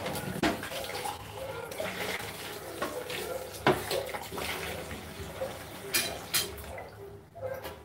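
Water running steadily from a tap, with a few sharp knocks and clinks of dishes, the loudest near the middle and twice close together near the end.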